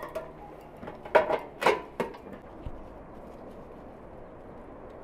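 A few sharp metal knocks and clatters close together, as of tongs and a metal piece striking a steel pot lid, followed by a steady faint outdoor background.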